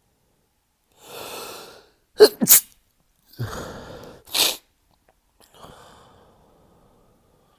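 A man's stifled sneezes in a sneezing fit. A drawn-in breath is followed by two sharp stifled sneezes in quick succession, then another drawn-in breath and a third stifled sneeze, and a short, softer breath out near the end.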